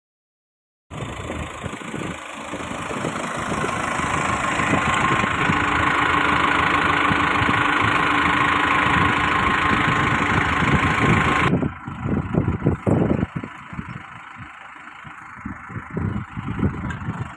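Tractor engine running steadily. About eleven seconds in the sound drops suddenly to a quieter, uneven run with irregular low thumps.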